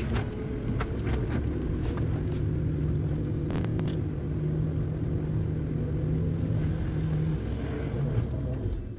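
Excavator diesel engine and hydraulics running under load, heard from inside the cab as the boom swings and lifts the bucket. The engine note is a steady low hum that holds a slightly higher pitch from about two seconds in until near the end, with a few sharp knocks and rattles from the cab.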